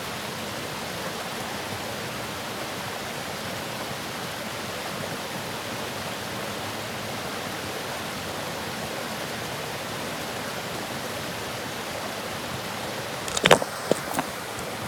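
Waterfall rushing in a steady, even roar of falling water. Near the end a few sharp knocks or clicks break in, louder than the water.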